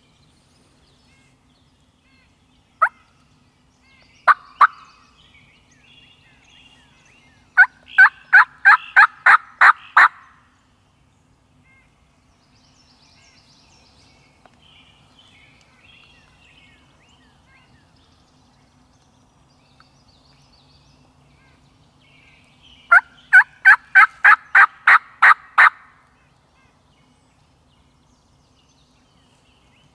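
Hen-turkey calling, loud and close: a single cluck, then two clucks, then a run of about ten evenly spaced yelps, and a second run of yelps some thirteen seconds later. This is a hunter's turkey call, used to draw in a gobbler.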